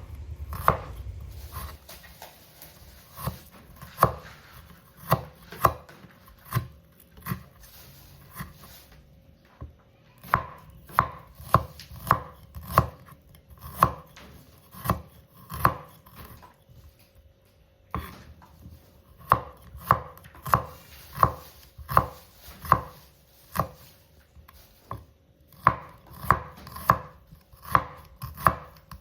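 Kitchen knife chopping shallots on a cutting board: separate sharp knocks of the blade on the board, about one to two a second, with a few short pauses.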